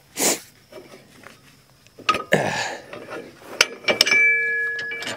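Metal clinks and taps from the tiller's hitch pin and retainer being worked loose by hand at the tractor's three-point arm. One sharper clink about four seconds in rings on briefly.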